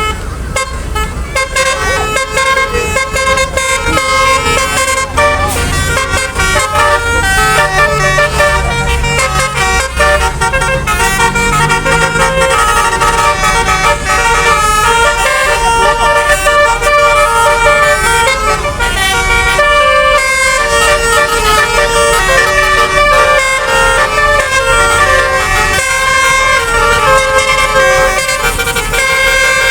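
Basuri-type multi-tone 'telolet' bus horn playing a long run of quickly changing notes, like a tune. Under it is a low bus-engine rumble, strongest in the first several seconds.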